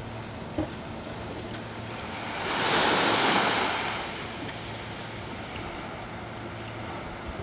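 Small wave washing up onto a sandy beach, a swelling hiss that rises and falls away a couple of seconds in, over the faint lapping of a calm sea.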